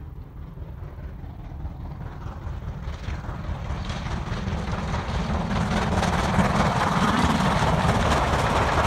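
LMS Stanier Black Five 4-6-0 steam locomotive 44932 hauling a train of coaches, approaching and growing steadily louder, then running loud and steady as it passes close by from about six seconds in.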